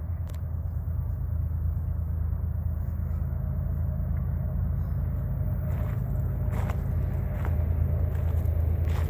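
Steady low rumble of distant engines, growing slightly louder near the end.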